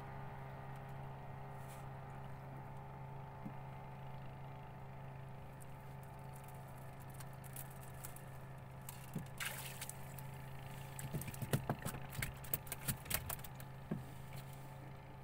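A hooked fish thrashing and splashing at the surface beside a small boat as the handline is hauled in, a quick run of splashes and slaps from about nine seconds in. A steady low hum runs underneath.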